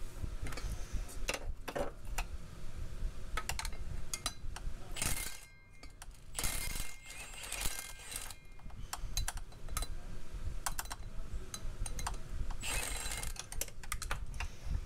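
Scattered metallic clinks and clicks of hand tools, a wrench and socket working the 18 mm bolts that join the driveshaft to the flex disc (guibo), with a few short rushing sounds.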